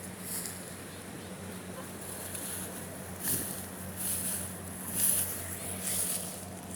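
Rice combine harvester's engine running at a steady hum, with intermittent bursts of hiss in the high end.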